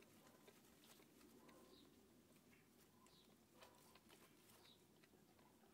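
Near silence: faint soft clicks of a mother cat licking a newborn kitten clean, with a few tiny high squeaks.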